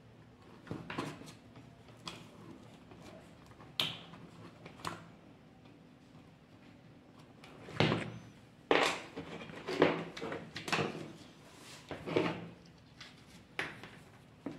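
Handling noise from a circuit board being moved and worked on a workbench during soldering: scattered taps, clicks and scrapes, with a denser run of louder knocks and rubbing a little past the middle.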